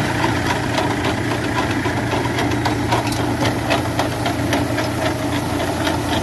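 Tractor-drawn potato digger at work: the tractor's engine running steadily under the irregular clatter of the digger's rod elevator chain as soil, vines and potatoes tumble over it.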